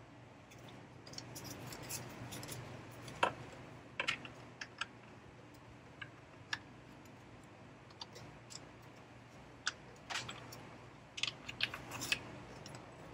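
Faint, irregular clicks and taps of a hand ratchet and tool on bolts as the intake manifold bolts of a BMW N55 engine are loosened, with a small run of clicks near the end.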